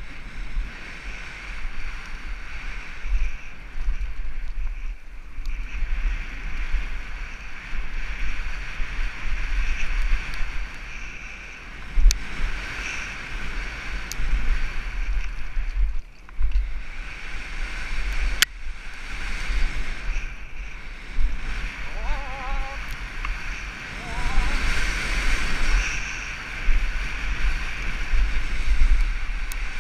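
Downhill mountain bike ridden fast down a dry dirt trail, heard through a helmet-mounted camera: steady wind buffeting on the microphone over tyre and frame rattle, with sharp knocks from bumps and landings, clearest about 12 and 18 seconds in.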